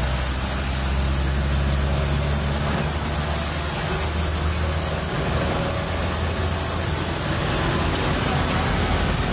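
Truck engine running steadily under way, with a steady rush of road and rain noise. A thin high whine sits over it and dips in pitch a few times.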